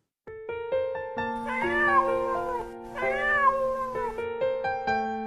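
Domestic cat meowing twice, each meow about a second long, rising then falling in pitch, over light music with held notes.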